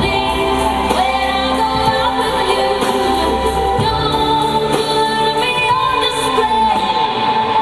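Recorded song with a singing voice, playing loud and steady.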